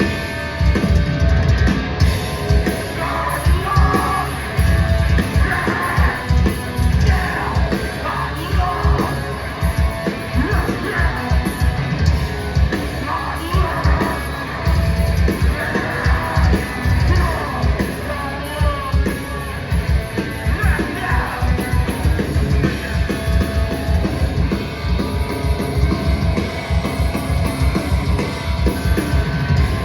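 Live hardcore band playing loudly: fast, heavy drumming and distorted guitars under shouted vocals.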